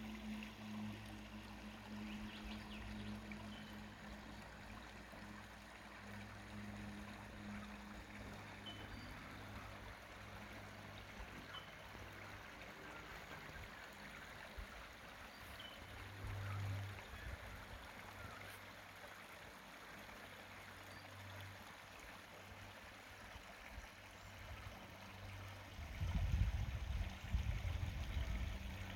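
Shallow creek trickling over rocks, a steady faint rushing of water. A low hum lies underneath, and loud irregular low rumbling comes near the end.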